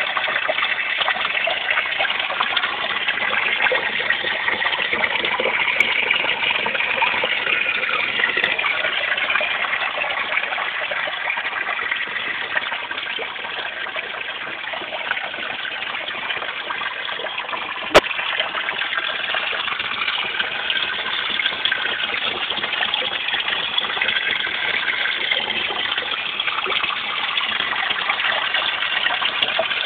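Pond water gushing and splashing steadily. There is a single sharp click about two-thirds of the way through.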